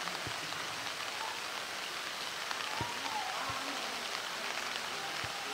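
Steady rain falling and pattering on surfaces, with a few separate drips standing out.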